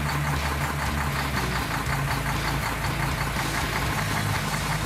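Semi-trailer truck's diesel engine running steadily, a low engine tone with a fast, even knocking clatter.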